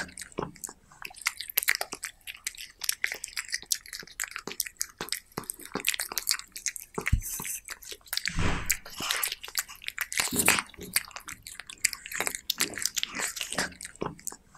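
A cat chewing and biting raw meat close to the microphone: a fast, irregular run of smacking and crunching clicks, with a few heavier knocks about halfway through.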